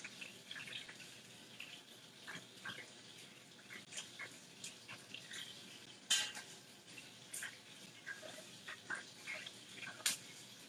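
Kitchen clatter at the stove: metal utensils clinking and tapping against pots and pans over a faint sizzle, with sharper clinks about six seconds in and again near the end.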